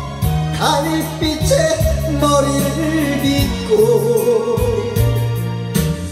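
Karaoke backing track of a slow Korean trot ballad, with sustained bass notes under a wavering melody. A man's voice sings along through a handheld microphone.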